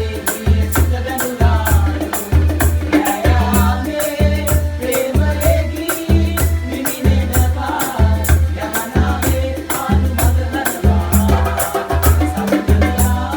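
Sinhala calypso-style band music: a steady bass beat about twice a second under a shaker and a wavering melody line.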